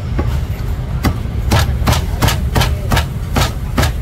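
Cleaver chopping roast goose on a thick round wooden chopping block: about nine sharp strikes, settling after the first second or so into an even rhythm of about three a second.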